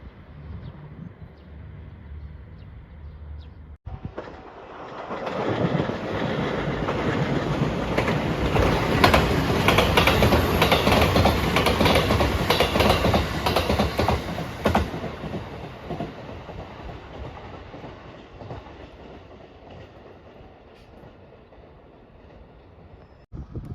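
A train passing close by: it builds up about four seconds in, is loudest for several seconds with a rapid clickety-clack of wheels over the rail joints, then fades away.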